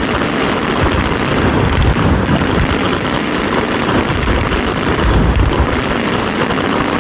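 Fireworks going off in a dense, rapid barrage: a continuous rattle of overlapping bangs and crackles, with deeper booms now and then.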